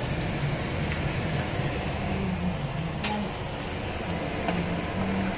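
Steady fan-like whooshing machine noise, with a few faint clicks.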